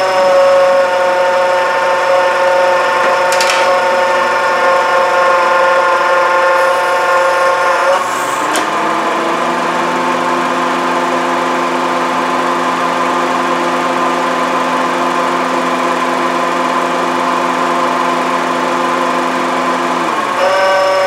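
Running 2011 Honda CR-V engine bay with a loud, steady whine from its failing AC compressor. The pitch drops sharply about eight seconds in and jumps back up near the end, the drastic pitch change that comes as the compressor turns on and off.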